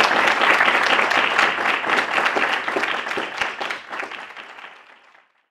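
Audience applauding, fading out over the last two seconds.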